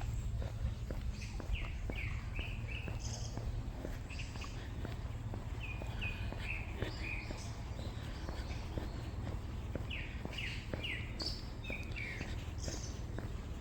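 A songbird repeating a phrase of three or four quick down-slurred whistled notes every few seconds, with footsteps on a trail and a low steady rumble underneath.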